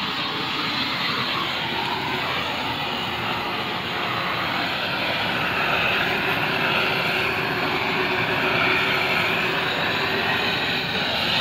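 Gas blowtorch on a hose burning with a steady, unbroken hiss and rush of flame as it heats a PVC pipe.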